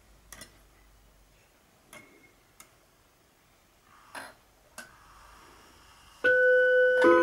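A few light clicks and taps as the hands of a vintage Junghans 8-day wall clock are moved round by hand. About six seconds in, the clock's chime strikes: two notes, the second lower, both ringing on.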